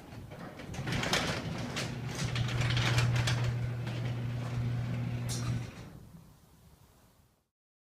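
Automatic garage door opener running: a steady motor hum with the door rattling and clacking along its track. It starts about a second in and stops near the end.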